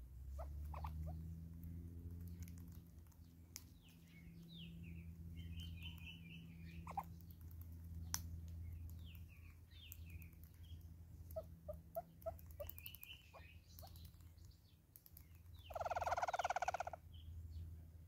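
Red-billed hornbills pecking seed off a stone slab: scattered sharp taps, with small birds chirping and trilling and one short, harsh, rapidly pulsed call near the end, over a steady low hum.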